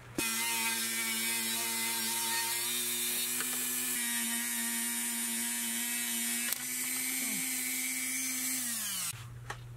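Power grinder with a thin zip cut-off disc cutting window bolts flush. The motor runs with a steady whine and hiss for about nine seconds, its pitch shifting slightly a few times as it cuts. Near the end it is released and spins down.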